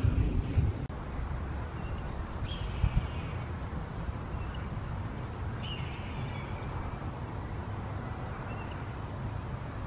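Red-tailed hawk screaming twice, each a hoarse falling scream about a second long, the first about two and a half seconds in and the second near six seconds, over a steady low rumble with a couple of dull thumps in the first few seconds.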